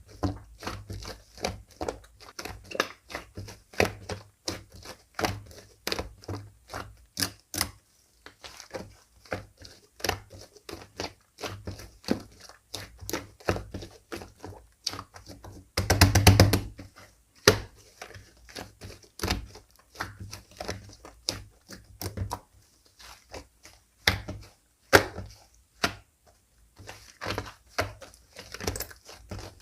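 Slime being kneaded, pressed and mixed by hand, making a steady run of small sticky clicks and pops. A dense rapid cluster of pops about 16 seconds in is the loudest part.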